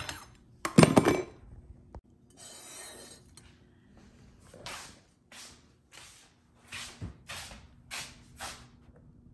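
A couple of sharp knocks and clatters on a kitchen counter, then a short shuffle and a run of about eight footsteps on a hard floor, roughly two a second.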